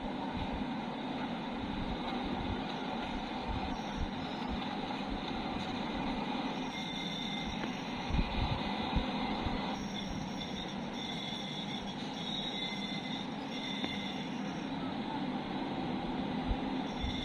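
Train hauled by a BCU-30 electric locomotive running past on the track: a steady rumble of wheels on rail, with high wheel squeal coming and going from about seven seconds in and a few louder knocks around eight seconds in.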